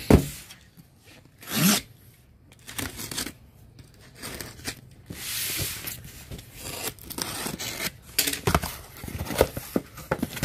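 A cardboard box thumps down onto a table and is slid across it. Its packing tape is then slit with a snap-off utility knife and the flaps are pulled open, with cardboard scraping, tape tearing and rustling, and a longer scrape about halfway through.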